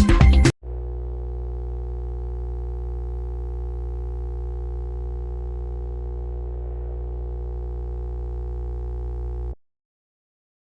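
A music track cuts off about half a second in, followed by a steady, unchanging low electronic drone with many fixed overtones, which stops abruptly shortly before the end.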